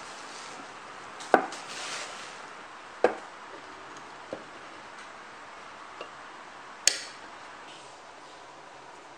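Small objects being set down on a wooden cabinet shelf: five sharp knocks and taps, spaced unevenly, the first and last the loudest, over a steady faint hiss.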